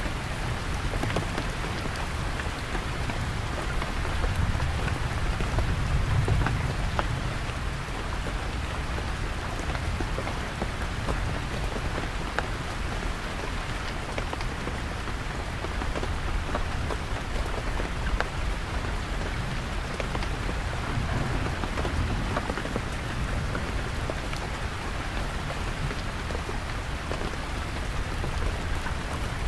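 Heavy rain drumming steadily on a canvas tent, with many separate drop hits. A deep rumble of distant thunder swells about four to seven seconds in, and again more faintly later.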